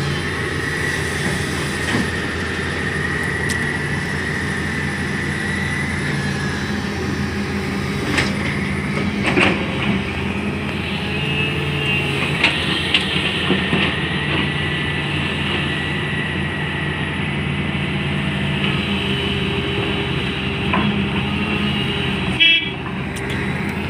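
Komatsu 200 excavator running under work while moving soil aside: a steady diesel engine drone with a high whine over it and a few knocks around the middle.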